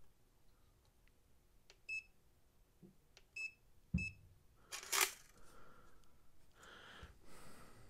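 Three short electronic beeps from an Inkerma ACE-Tape laser tape measure as its button is pressed to fire the laser and take a distance reading, the third with a small knock. About a second later comes a brief rustle of handling as the unit is picked up, then fainter handling.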